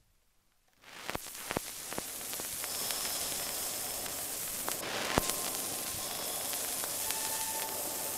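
Steady crackling hiss, like static or old-film crackle, fading in about a second in, with scattered sharp clicks and pops throughout.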